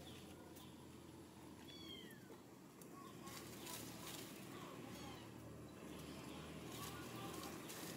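Faint high-pitched, meow-like squeak from a young monkey, falling in pitch, about two seconds in.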